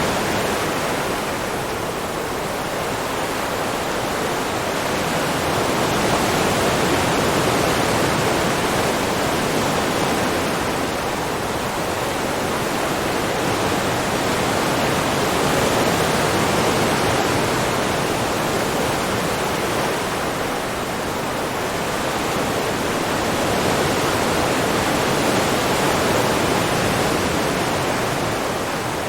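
Ocean waves washing on the shore in a steady rush of surf. The sound swells and ebbs slowly, with a crest about every nine seconds.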